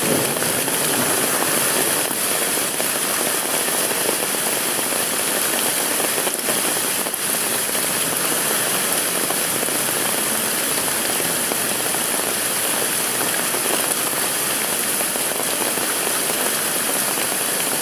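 Steady rushing of a swollen river in flood: an even, unbroken noise of fast-moving water.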